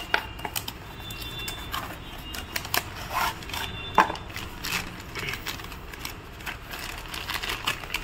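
Cardboard parts box being cut and torn open by hand, then a plastic bag crinkling as the new ignition coil is drawn out: a string of small scratches and clicks, the sharpest about four seconds in.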